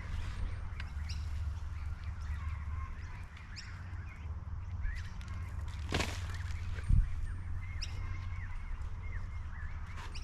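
Birds chirping and calling, short repeated chirps and arched calls. A sharp click comes about six seconds in and a heavy low thump about a second later, over a steady low rumble.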